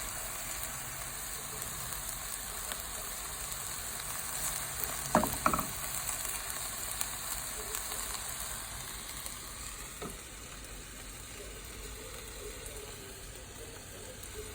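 Vegetables sizzling in a hot pan as they are stir-fried in oyster sauce, with a couple of sharp knocks about five seconds in and another near ten seconds.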